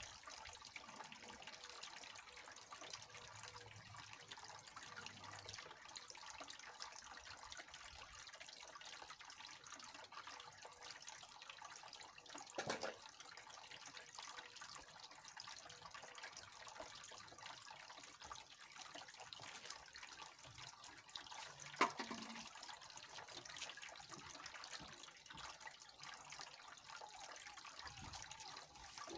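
Small garden fountain trickling water steadily into its stone pool. Two brief knocks break in, one about 13 seconds in and a sharper, louder one about 22 seconds in.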